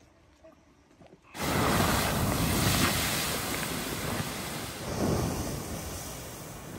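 River water poured from a bucket onto hot campfire coals, hissing loudly as it turns to steam. It starts suddenly about a second in, surges again about five seconds in, then slowly dies down.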